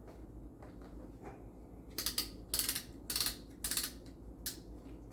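Plastic welding helmet being handled: a run of about five short rattling scrapes and clicks in the second half.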